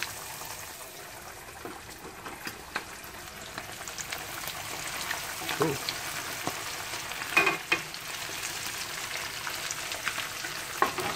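Whole fish coated in cornmeal and breadcrumbs deep-frying in hot vegetable oil in a wok: a steady bubbling sizzle with scattered crackles and a few sharper clicks as metal tongs move the fish.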